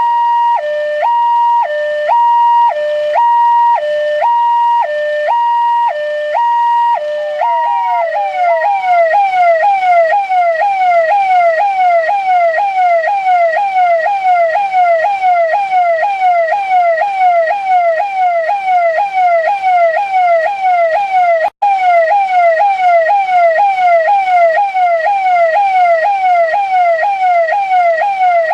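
Police siren sounding a two-tone hi-lo, jumping between a high and a low pitch about twice a second. About seven seconds in it switches to a fast yelp: falling sweeps repeating about three times a second. The sound cuts out for a split second about 21 seconds in.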